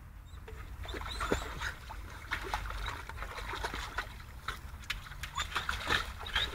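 Dog wading in a shallow paddling pool and nosing a ball about, with irregular small splashes and sloshes of water.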